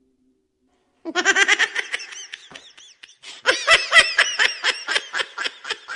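Loud laughter in rapid ha-ha-ha pulses. It starts about a second in, dips briefly around three seconds, then comes back louder.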